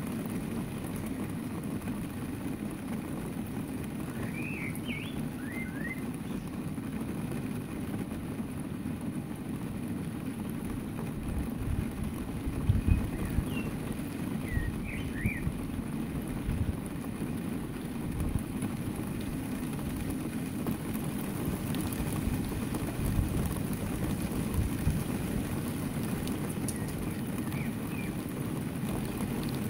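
Steady low rumble of wind on the microphone, gusting harder a little before halfway. Over it, sparrows give short chirps in three brief clusters.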